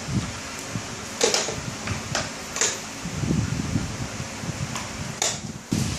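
Puppy paws and claws clicking and tapping on the ridged plastic grid of a dog toilet tray: a few scattered sharp taps over a steady low rumble.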